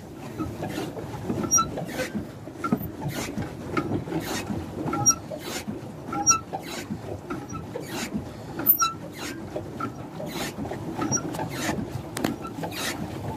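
Pedal boat's pedal drive squeaking and creaking in a steady rhythm, about two strokes a second, over the rush of churned water.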